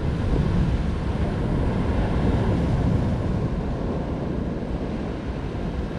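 Wind rumbling steadily on the microphone, with surf washing against the rocks underneath.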